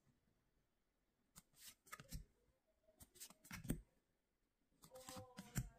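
Yu-Gi-Oh trading cards being slid and flicked against one another in the hand: three short bursts of rustling and clicks, about a second and a half apart.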